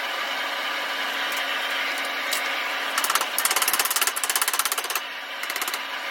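Steady hissing roar of a propane forge burner, with a rapid mechanical rattle of many quick strikes a second from about three to five seconds in, and again near the end.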